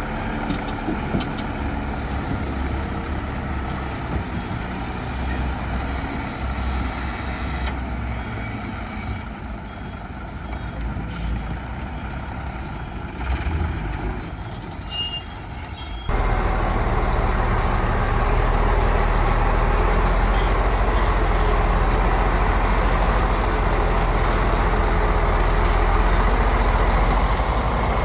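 Heavy diesel engines of construction machinery running, with an abrupt jump to a louder, steadier low engine drone about sixteen seconds in.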